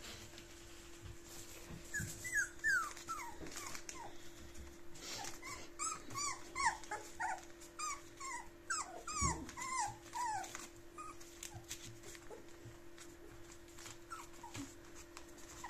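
A litter of puppies almost five weeks old, whimpering and yelping in many short, high, falling squeaks that come thick and fast from about two seconds in. They thin out to a few scattered whimpers near the end.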